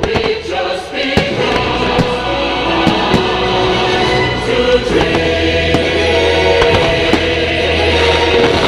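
Fireworks show soundtrack over outdoor loudspeakers: a choir singing over orchestral music, with sharp firework bangs about once a second.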